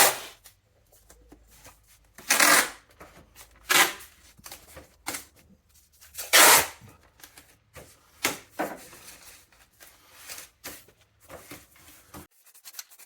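Masking tape being pulled off the roll and torn in a series of short ripping bursts, a few loud and several softer, during masking-up for primer.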